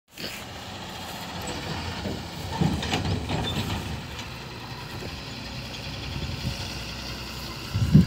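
JCB 3DX backhoe loader's diesel engine running with a steady low rumble. A few knocks and clanks come about three seconds in, and a short louder sound comes right at the end.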